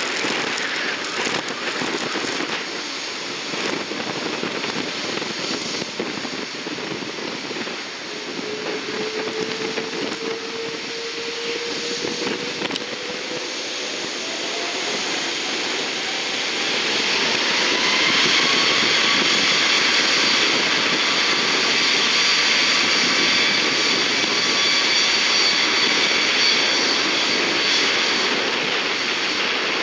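Jet aircraft engines spooling up: a steady roar with a whine that rises in pitch over several seconds, then holds at high power about halfway through as the roar grows louder, as a jet applies thrust.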